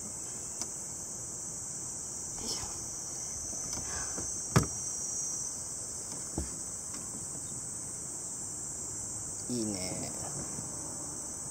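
Steady high-pitched chorus of insects, with a few sharp knocks and clicks of gear being handled on a boat deck, the loudest about four and a half seconds in.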